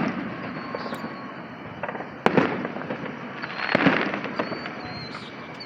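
Aerial fireworks bursting: sharp bangs at the start and about two seconds in, then the loudest bang just under four seconds in, followed by a short rush of noise.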